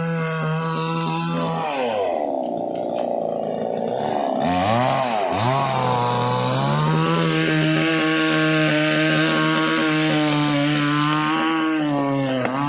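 Chainsaw engine running at high revs, its pitch dropping and climbing back a couple of times between about two and six seconds in as it works through wood, then holding a steady high note.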